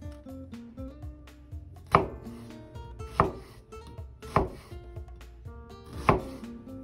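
A chef's knife slices down through a halved onion and knocks on a wooden cutting board: four crisp cuts a little over a second apart, with soft background music underneath.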